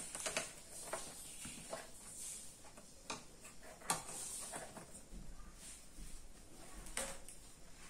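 Faint scattered clicks and taps as a soldering iron and wires are handled on a set-top box's power-supply board while its connections are desoldered, so that the faulty board can be replaced.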